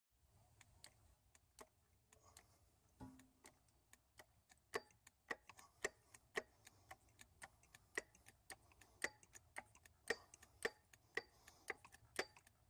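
A run of faint, sharp clicks from the hydraulic hand pump and cylinder as a wheel hub is pressed into its bearing. The clicks grow louder and more frequent about five seconds in, to roughly three a second.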